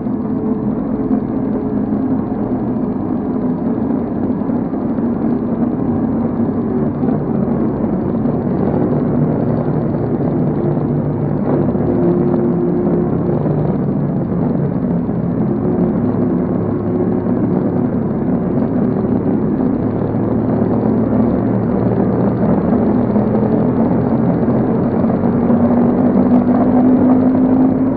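Sport motorcycle engines running steadily at riding speed as a group rides together. The pitch holds fairly even with small shifts and rises gently near the end.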